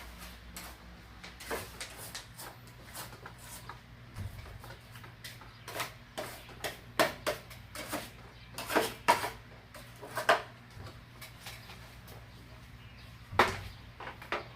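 Irregular clicks and knocks of hard parts being handled while a wall-mounted air conditioner is taken apart and cleaned, with a cluster of them around the middle and one louder knock near the end, over a faint steady low hum.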